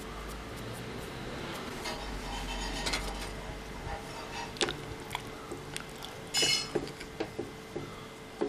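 Wooden spatula stirring sambar in a metal pressure cooker pot, knocking and scraping against the pot's sides in a string of short clicks and clinks. The loudest is a ringing clink about six and a half seconds in.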